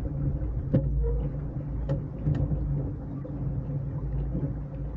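Small open motorboat under way on a lake: a steady low rumble of wind and water against the hull with a steady motor hum, and a few sharp knocks, one about a second in and two more near the middle.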